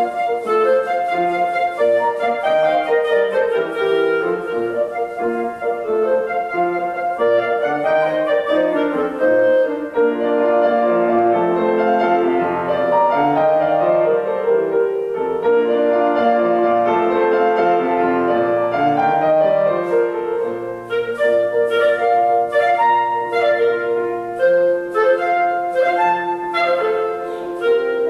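A clarinet and a grand piano playing a classical duo piece, the clarinet carrying held melodic lines over the piano accompaniment. In the last third the piano strikes a run of short, detached chords.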